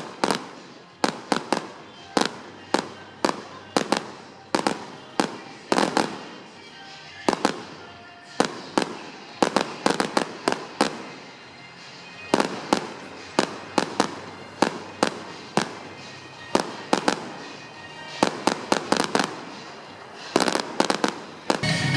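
Fireworks display: a long run of sharp bangs and reports, one or two a second, some in quick clusters of several.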